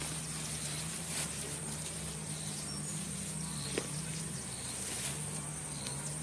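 Steady high insect chirring over a low steady hum, with two sharp snaps, about a second in and just before four seconds, as peanut plants are handled and their pods picked from the roots.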